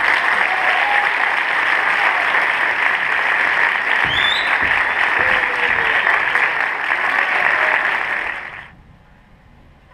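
Audience applauding in a hall, steady for about eight and a half seconds and then dying away to quiet, with a short high rising note about four seconds in.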